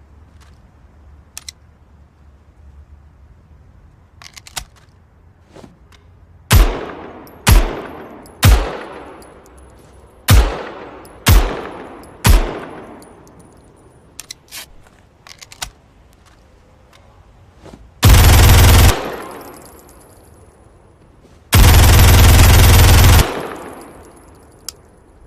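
MAC-10 submachine gun firing six single shots about a second apart, each with a long echoing tail, then two short full-automatic bursts, the second a little longer. A few faint clicks come before and between the shots.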